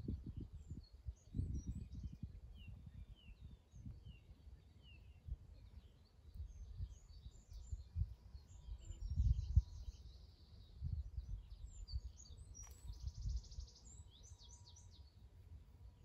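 Garden birds singing: scattered short chirps and whistles, with a fast trill about halfway through and another near the end. Underneath runs a low, uneven rumble that is louder than the birdsong.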